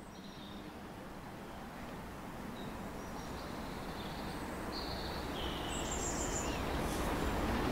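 Class 50 diesel locomotive with its English Electric 16-cylinder engine approaching at the head of a train, a low rumble growing steadily louder. Birds chirp several times over it.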